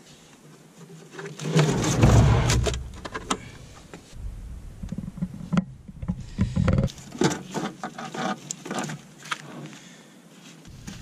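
Scattered knocks, clicks and scrapes of hands working at a bus battery box and handling a lead-acid battery in it, with bouts of low rumble, loudest about two seconds in.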